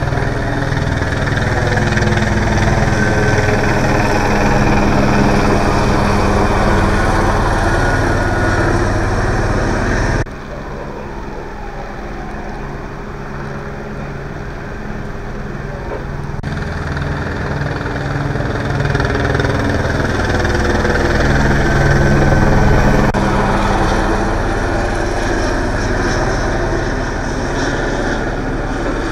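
Steady engine hum from running vehicles, with a sudden drop in level about ten seconds in, then slowly growing louder again.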